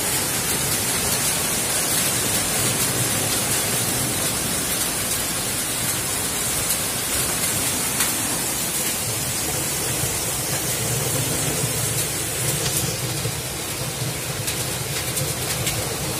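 Heavy hailstorm: rain and large hailstones pelting down on the garden, lawn and paving, a steady dense hiss with a few sharper ticks of stones striking.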